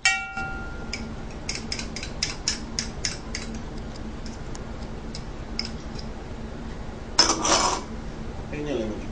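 Kitchen handling noises: a sharp click with a brief ring at the start, then a quick run of light clicks and taps, about four a second, as utensils and small items are handled over a mixing bowl. About seven seconds in comes a louder short rustling scrape, followed by a brief falling squeak.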